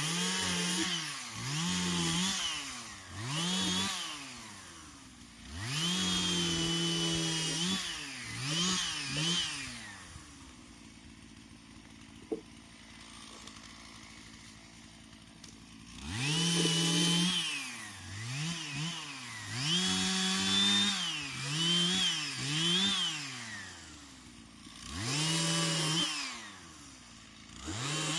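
Two-stroke chainsaw revved up and down over and over, with several short stretches held at full throttle. It drops to a quiet idle for a few seconds around the middle, with one sharp click, then revs hard again.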